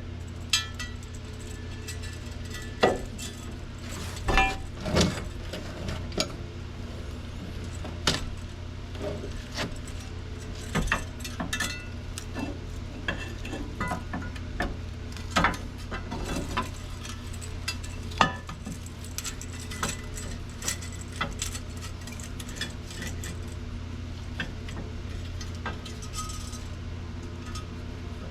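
Irregular metallic clinks and clanks of tools and metal parts being handled over a steady low hum.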